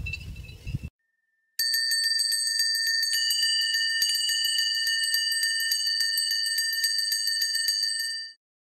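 Low outdoor rumble cuts off about a second in. After a short gap comes a bright electronic bell-like chime, a chord of several high tones with a fast, even shimmer, which holds steady for about seven seconds and then stops abruptly.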